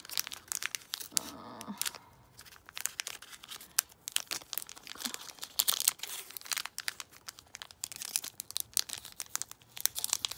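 A Pokémon booster pack's foil wrapper being torn open and crinkled by hand, many quick irregular crackles and tears.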